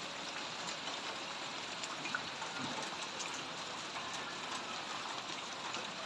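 Steady rain falling on floodwater, with scattered small drip ticks.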